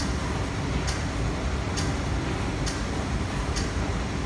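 Steady hum of a parked MTR South Island Line S-Train and the underground platform around it, with a sharp click repeating a little faster than once a second, five times.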